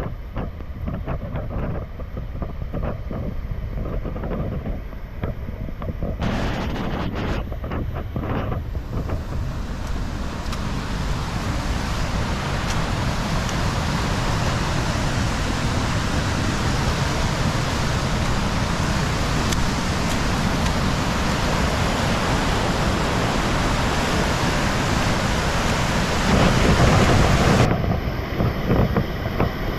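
Rain-swollen water rushing, a steady roar of noise. It grows fuller and brighter about a third of the way in.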